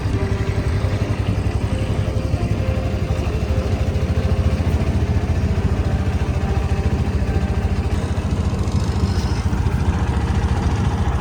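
A small combustion engine running steadily, with a fast, even low throb that stays level.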